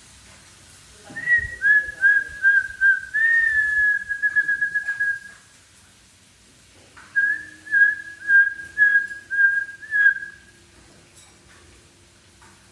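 Whistling: two phrases of short, high whistled notes held at nearly one pitch, each note starting with a quick dip. The first phrase ends in a fast trill, and the second follows after a pause of about a second and a half.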